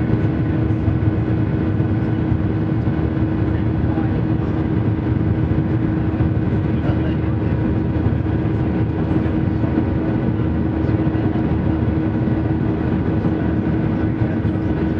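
Steady cabin noise of a jet airliner climbing after take-off, heard from a window seat: a dense rumble of engine drone and air rush with a steady hum running through it.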